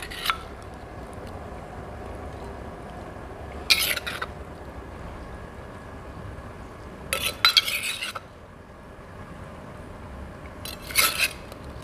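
Metal serving spoon scooping wet salad out of a clay mortar onto a ceramic plate: three short bursts of scraping and clinking, about four, seven and eleven seconds in.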